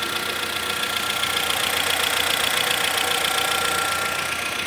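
Volkswagen Voyage 1.6 engine idling steadily with a small, rapid tec-tec from the top of the engine: the hydraulic lifters' characteristic tick, normal once oil pressure has built after an oil change.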